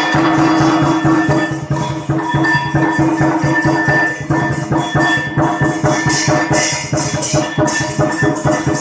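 Background music with a fast, busy percussion beat over steady held tones.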